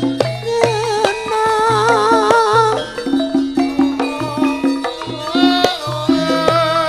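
Live Javanese gamelan music for tayub dancing, with repeated drum strokes under ringing pitched notes. A woman singer (waranggana) sings through a microphone with a strong vibrato; she pauses about three seconds in and comes back about five seconds in.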